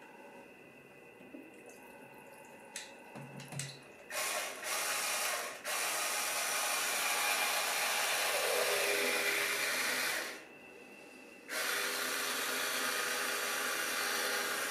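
LEGO Technic submarine's motor-driven propellers churning water in a water-filled crate: a steady rushing that starts suddenly about four seconds in, cuts out for about a second later on, then starts again. Before it, a few light clicks and knocks of the model being handled.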